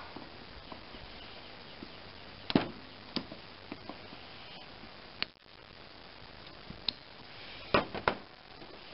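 Scattered sharp metal clicks and clinks of locking pliers (vise grips) gripping and turning a stud on a carburetor intake manifold, with a louder pair of clanks near the end as the pliers are set down.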